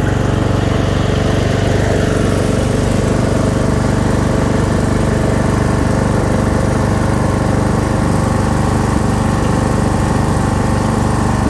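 Craftsman LT1000 lawn tractor's 24 hp V-twin engine with dual exhaust, running steadily as the tractor drives along.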